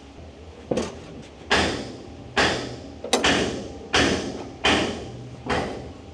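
Steering lever of a WWII Wespe (Panzer II chassis) pushed forward repeatedly, giving a sharp metallic clack with a short ringing tail about every 0.8 seconds, seven times. It is the check for slight resistance while the steering brake's upper adjusting nut is being set.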